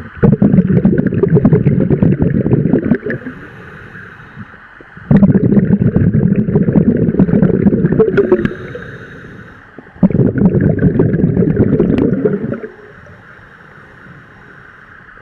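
Scuba diver breathing underwater through a regulator: three long bursts of exhaled bubbles, each about three seconds long, with quieter pauses for the in-breath between them.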